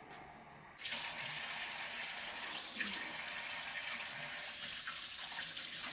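Kitchen faucet running onto a stainless steel sink while a duck breast is rinsed by hand in the stream. The water starts suddenly about a second in and then runs steadily.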